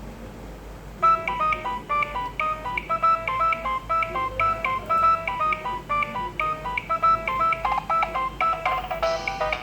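A Nokia 6030 ringtone played through a Nokia 2760 phone's speaker: a fast electronic tune of short, bright notes, several sounding together, starting about a second in after faint hiss.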